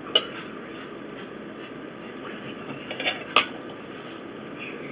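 Metal fork tapping and clinking against a dinner plate: a sharp click about a fifth of a second in, then a quick cluster of clinks around three seconds in, the last the loudest.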